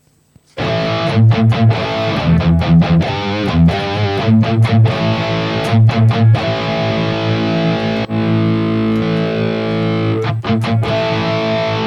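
Distorted electric guitar playing a riff of chords, chopped by many short stops and with some chords left to ring.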